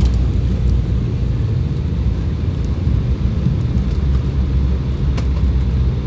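Cabin noise of a private jet rolling along the runway: a loud, steady rumble from the engines and wheels.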